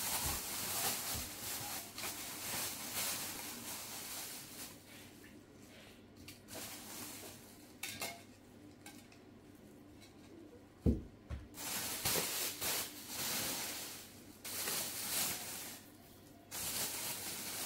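Dishes and kitchenware being handled: irregular clinking and rustling, with one sharp knock about eleven seconds in.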